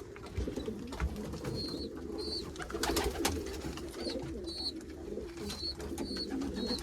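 Many domestic pigeons cooing together in a loft, a steady low warbling murmur, with short high peeps now and then. A couple of sharp clicks come about three seconds in.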